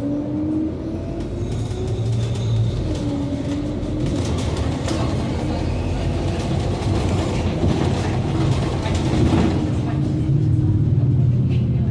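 Scania GN16 articulated diesel city bus, heard from inside the passenger cabin, driving under power: a steady low rumble with a drivetrain whine that holds at a wavering pitch.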